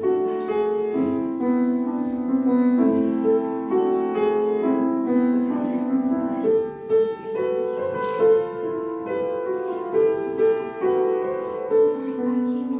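Piano music: a gentle tune of steady, evenly changing notes.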